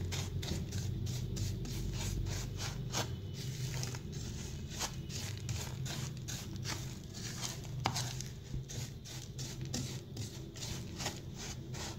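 A metal spoon stirring and scraping crumbly semolina mixture in a dish, with irregular clicks and taps of the spoon against the dish, several a second. The mixture has begun to dry and go crumbly.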